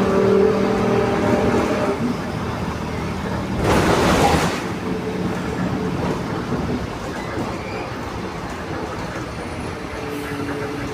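Mercedes-Benz LO 916 Bluetec 5 bus running, its OM924 LA 4.8-litre four-cylinder diesel under a pitched drone from the differential that fades and returns. A short burst of hiss comes about four seconds in.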